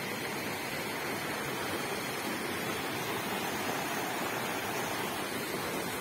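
Steady rush of a stream cascading over rock slabs.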